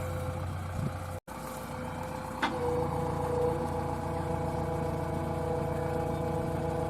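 Diesel engine of a JCB backhoe loader running steadily, cut by a brief break in the sound about a second in and a sharp click a second later, after which it runs on steadily.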